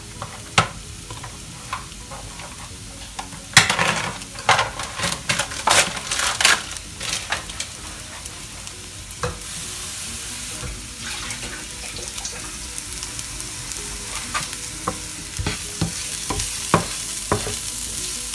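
Sliced leeks frying in coconut oil in a non-stick pan: a steady sizzle that grows louder and brighter from about halfway through. A wooden spatula stirs and knocks against the pan in a busy run of clicks a few seconds in, and again near the end.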